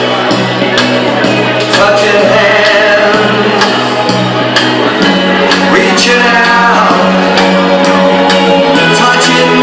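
Dance music with a singer and a steady beat, played loud.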